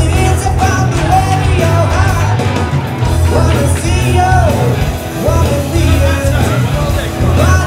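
Rock-style song: a sung melody line that glides up and down over a full band with a heavy, pulsing bass line.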